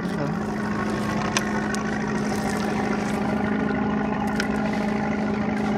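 Small fishing boat's engine running steadily at an even pitch, with a couple of faint clicks.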